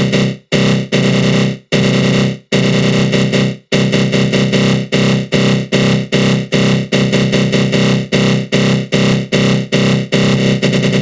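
Loud synthesized growl from a GMS synth in FL Studio Mobile, run through a flanger. It sounds in a few longer bursts that cut off abruptly during the first four seconds, then turns into rapid pulses about three to five a second.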